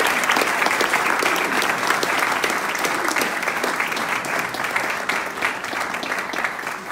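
Audience applauding: a dense patter of many hands clapping that slowly dies down toward the end.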